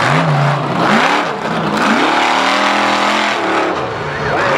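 Lifted mud-bog pickup truck's engine revving hard, its pitch climbing and dropping about four times as the truck churns through the mud pit.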